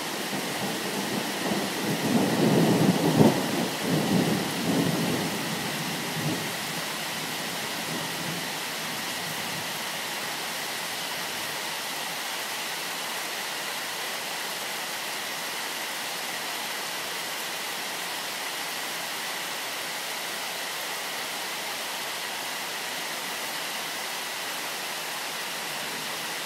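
Steady rain falling, with a low rumble of thunder in the first few seconds that peaks about three seconds in and dies away by about six seconds, leaving only the even hiss of the rain.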